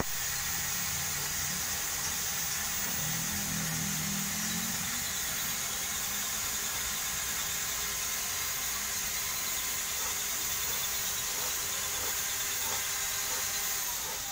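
Steady mechanical noise: a constant hiss with a few faint steady whining tones, dropping away near the end.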